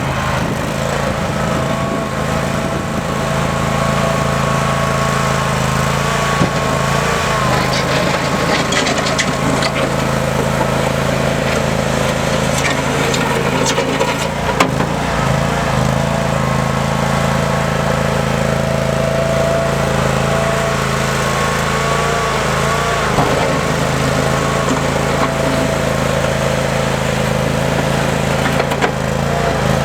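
Toro Dingo 222 compact skid steer loader running steadily, with a higher whine above the engine note that dips briefly in pitch several times, along with a few light clicks and rattles.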